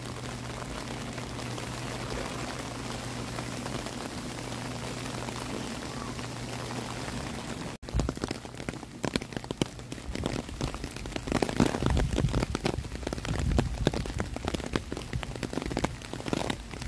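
Rain falling, first as an even hiss over a steady low hum; after a short break about eight seconds in, the rain comes louder and more uneven, with irregular close patters and crackles of drops.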